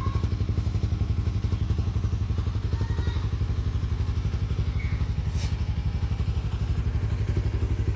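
Suzuki Raider R150 Fi's single-cylinder four-stroke engine idling steadily through a stock muffler with its internal silencer removed, the exhaust pulses even and deep.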